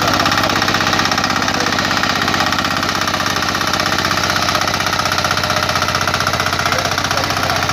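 Angad power weeder's single-cylinder engine running steadily with a rapid, even knock as the machine tills the soil.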